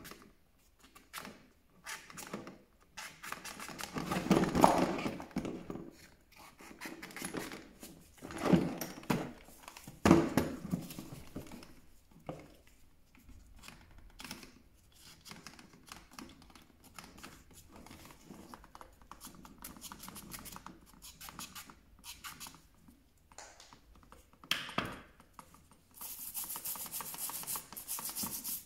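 Rubbing and scrubbing strokes on the plastic housing of a hammer drill, with small clicks and handling knocks and louder strokes around four, eight and ten seconds in. Near the end a steady hiss starts.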